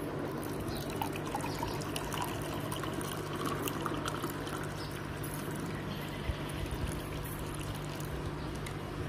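Water poured from a plastic bottle into a glass tumbler with a stone in it, trickling and splashing steadily.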